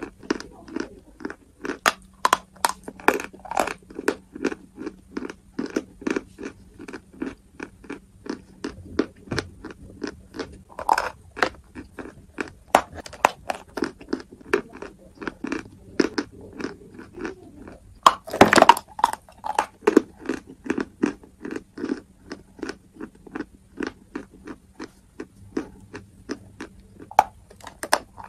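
A person chewing dry lump chalk: a steady run of crisp crunches, about three a second, with one much louder crunching bite about two-thirds of the way in.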